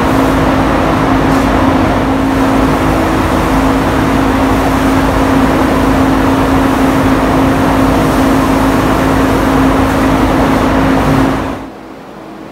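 Paint booth ventilation fan running loudly with a steady hum and a rush of air, then shutting down about a second before the end, leaving a much quieter hiss.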